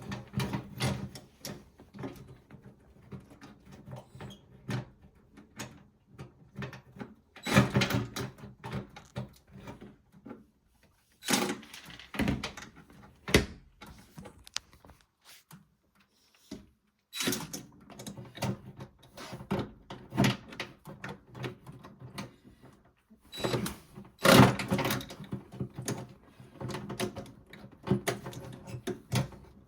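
Hand tools working on a washing machine's motor and metal housing: irregular clicks, knocks and scraping, with louder bursts of knocking now and then.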